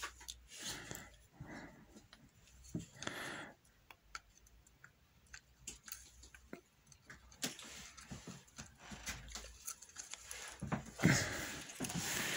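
Small scattered clicks and scrapes of metal parts being handled: the carbon brushes and springs of a scooter starter motor being pushed back into the brush plate with fingers and a small screwdriver. A few soft breaths close to the microphone come and go between them.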